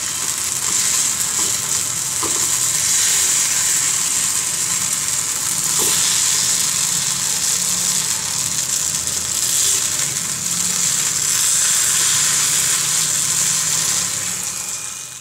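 Baby corn and onions frying in ghee in a kadai: a steady, loud sizzle, while a wooden spatula stirs the pieces, giving a few faint knocks against the pan.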